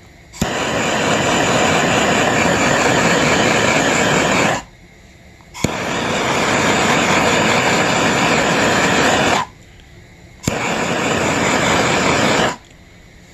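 Handheld gas torch flame lit three times, each time a sharp igniter click followed by a steady hissing jet for about four, four and then two seconds, shrinking heat-shrink tubing over a soldered wire splice.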